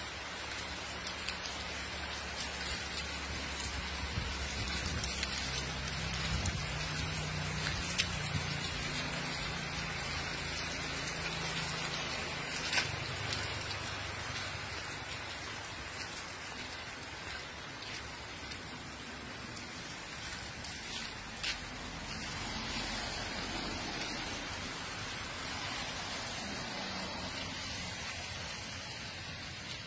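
Steady rain falling on wet pavement, with a low rumble through roughly the first twelve seconds and a few sharp taps.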